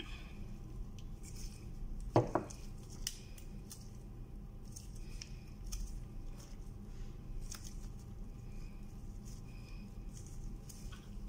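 Gloved hands handling a lamp unit and a small packet: light clicks and rustles, with one louder sharp click-squeak about two seconds in, over a faint steady hum.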